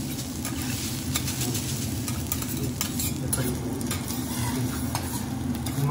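Egg fried rice sizzling on a teppanyaki steel griddle while two metal spatulas chop, toss and scrape it, with frequent sharp clinks of the blades against the steel. A steady low hum runs underneath.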